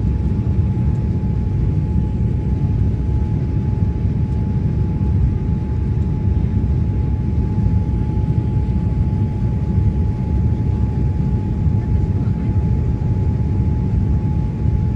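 Cabin noise inside a Boeing 787-9 airliner in flight, heard from a window seat over the wing: a steady deep rumble of engines and airflow, with a faint steady whine above it.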